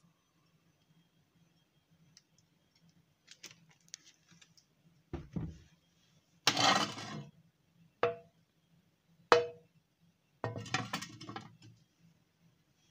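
Kitchenware clinking and clattering, a frying pan being handled on the stove. There are faint clicks at first, then a series of separate knocks and clatters, two of them short ringing knocks, with the loudest clatter about halfway through and another long one near the end.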